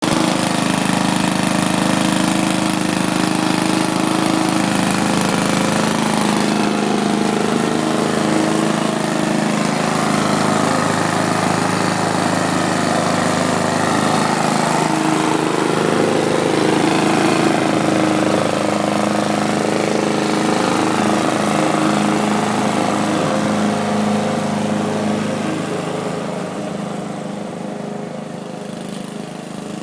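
Lawn mower engine running steadily under load, getting quieter over the last few seconds.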